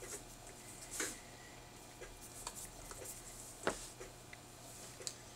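Faint handling sounds of small dental tools and a wax-up die in the fingers: a few light clicks and rustles, the sharpest about two-thirds of the way through, over a low steady electrical hum.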